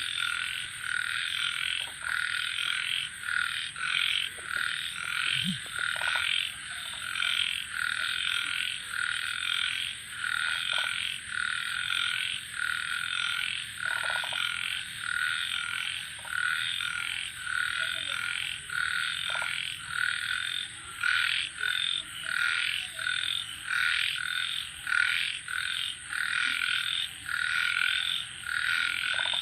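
A chorus of many frogs calling in quick, overlapping repeated croaks, with a steady high cricket trill running underneath.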